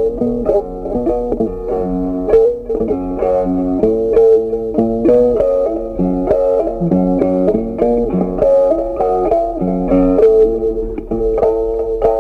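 Background music: a steady plucked-guitar melody.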